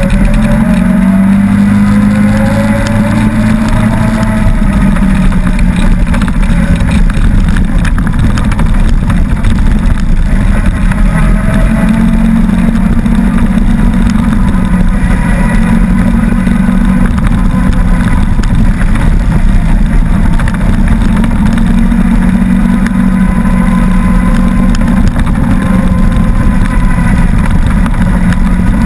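Engine of an off-road vehicle running continuously, heard close, as it drives along a dirt trail. Its pitch rises and falls a little with the throttle, most noticeably in the first few seconds.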